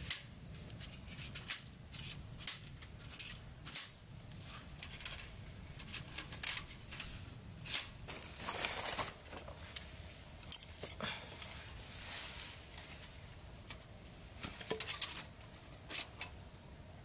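Irregular sharp clicks, snips and rustles of materials being handled and worked by hand, with a longer rustling stretch about halfway through.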